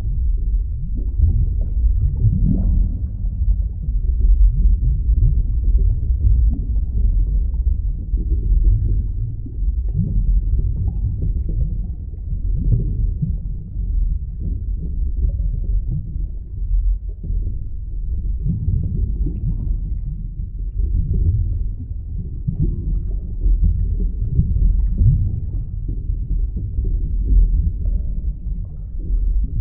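Underwater ambience: a steady, muffled low rumble with irregular gurgling swells.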